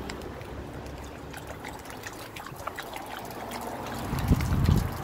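Water trickling from an outdoor garden tap while a black German Shepherd laps at the stream, making a run of small wet clicks. A louder low rumble comes near the end.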